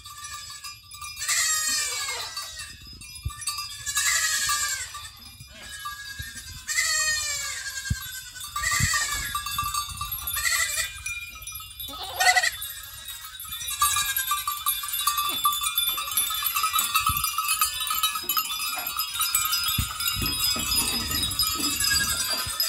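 Herd of goats bleating again and again as they walk past, with a loud single bleat about halfway. From about halfway, a steady high jingling, typical of bells on the goats, fills in behind the bleats.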